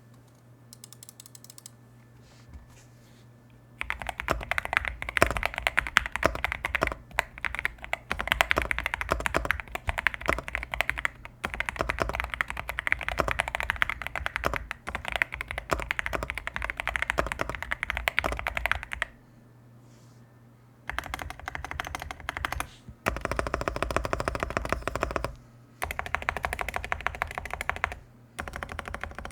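Typing on a Zouya GMK67 mechanical keyboard with prelubed Everglide Aqua King V3 linear switches in a plastic case: a fast, continuous stream of key clacks. A few faint keystrokes come first, then steady typing from about four seconds in, a pause of about two seconds, and several shorter bursts of typing.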